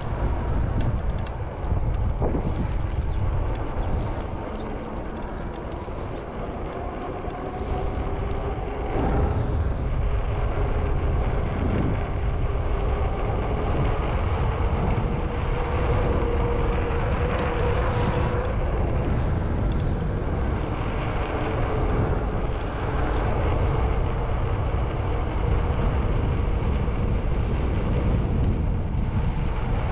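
Wind rushing over the microphone of a Super73 Mojave electric bike on the move, with the thin whine of its electric motor slowly rising and falling in pitch. The wind noise eases for a few seconds about five seconds in.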